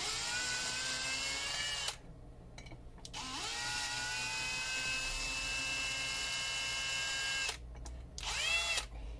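Cordless drill turning a combined drill-and-tap bit in a hole in the cast-aluminium cover of a Tesla large drive unit at slow speed. The motor whines in three runs: one of about two seconds, a longer one of about four seconds whose pitch rises and then holds, and a brief one near the end that winds down.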